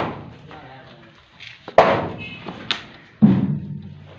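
Heavy knocks as concrete shuttering (formwork) is struck and pried loose, three sharp blows in the second half, each ringing briefly as it dies away.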